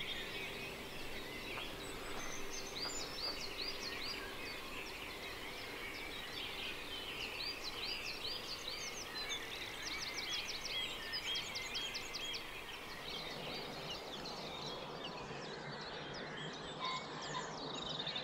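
Several birds singing together at sunrise, a dawn chorus: repeated high chirping notes, with a fast trill about ten seconds in, over a steady outdoor hiss.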